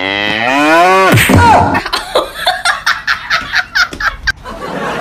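A long, loud vocal cry held for about a second, its pitch bending sharply down at the end, followed by about a dozen short bursts, like laughter, roughly four a second.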